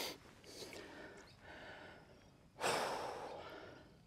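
A man's breathing: a couple of short breathy puffs, then a heavier sigh about two and a half seconds in that trails off.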